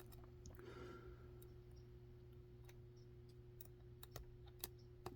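Faint, scattered clicks of a metal lock pick working the pin stack of an EVVA A5 5-pin euro cylinder during single-pin picking.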